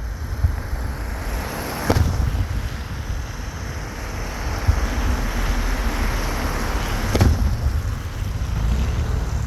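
Fireworks going off at a display, a few sharp bangs, the clearest about two seconds and seven seconds in, over steady wind noise on the microphone.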